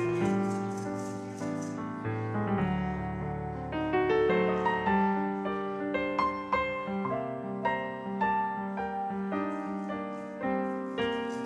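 Grand piano played solo, a flowing melody over ringing chords, each note struck and left to fade.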